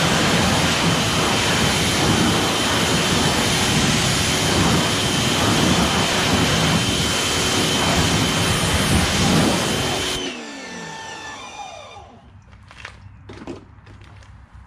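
Greenworks 2000 PSI electric pressure washer running and spraying: loud hiss of the water jet with a steady high whine. About ten seconds in it cuts off and the motor winds down with a falling whine, followed by a few faint knocks.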